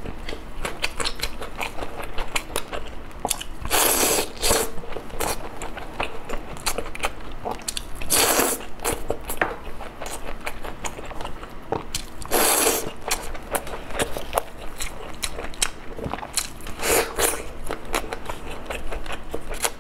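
Close-miked chewing of a full mouthful of food, with wet smacking and clicking throughout and a short rushing noise about every four seconds. Near the end comes a bite into a sausage.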